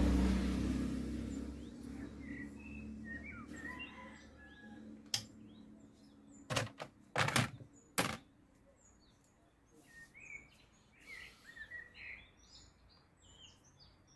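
Birds chirping in the background, with a vehicle's low rumble fading away over the first two seconds. A few sharp clicks or knocks come about five to eight seconds in.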